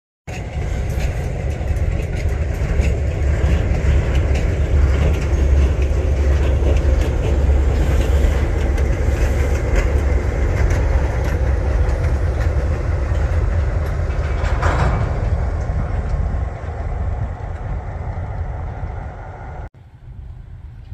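Diesel switcher locomotive Coopersville and Marne 7014 passing close by with one empty centerbeam lumber car. Its engine runs with a heavy low rumble while the wheels click over the rail joints, with a brief squeal about fifteen seconds in. The sound drops off suddenly near the end.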